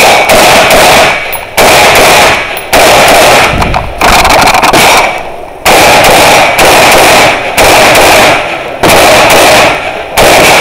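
Rifle fired in a steady string at about one shot a second, each shot loud enough to overload the microphone.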